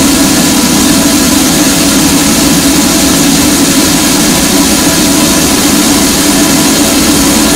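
Harsh noise music: a loud, dense, unchanging wall of distorted noise, heaviest in a low-middle rumble.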